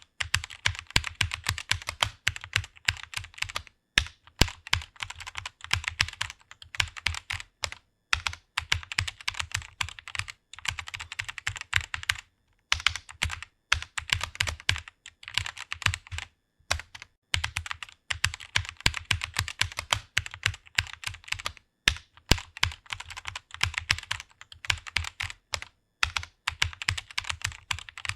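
Fast typing on a computer keyboard: a rapid, continuous stream of key clicks, broken by brief pauses every few seconds.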